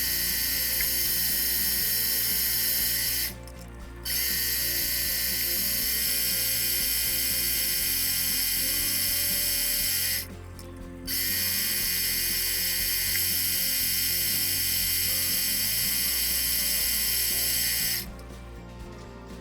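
A metalworking machine tool cutting a steel blank: a steady, high-pitched whine with a cutting hiss. It breaks off twice for under a second and drops away near the end, leaving a quieter background.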